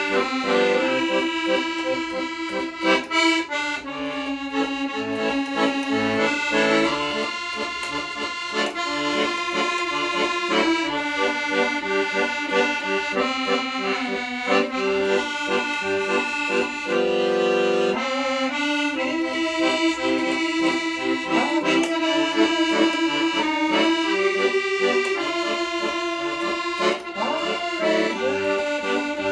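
Accordion played solo: a tune over reedy chords that change every second or so, with one long held chord a little past halfway through.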